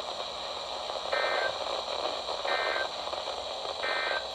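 Emergency Alert System end-of-message data tones over NOAA Weather Radio: three short, identical bursts of buzzy digital data, about 1.4 s apart, over steady radio hiss. They mark the end of the marine warning just read.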